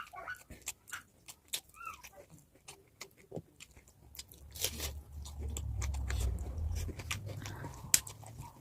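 Close-miked chewing of pork: wet mouth clicks and smacks, with a low rumble through the second half.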